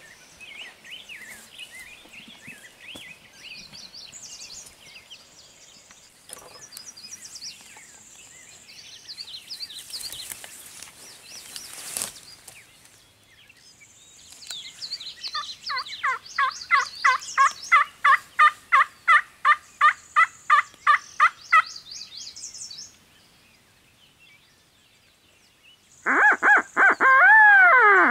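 Small songbirds chirp faintly in the background while a rapid run of about eighteen turkey yelps sounds, about three a second. Near the end a wild turkey gobbles loudly, its rattling call dropping in pitch at the finish.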